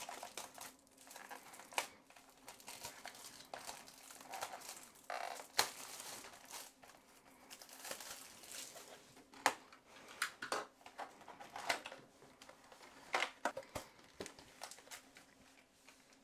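Plastic shrink-wrap crinkling and tearing as it is peeled off a sealed box of trading cards, in irregular crackles with a few sharp snaps.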